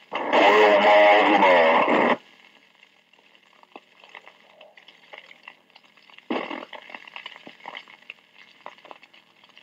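Police radio channel from an old dictabelt recording played back at half speed. A garbled, low-pitched voice-like transmission for about two seconds is followed by the faint crackle and clicks of the open channel, with a shorter burst about six seconds in.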